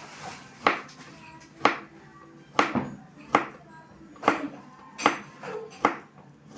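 A knife chopping on a cutting board with a sharp knock about once a second, over faint background music.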